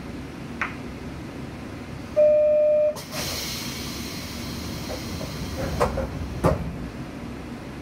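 Inside a stopped railcar: a short, loud, steady buzzer tone, then a sudden hiss of compressed air as the pneumatic passenger doors work. A couple of sharp knocks follow near the end, over the low steady hum of the idling train.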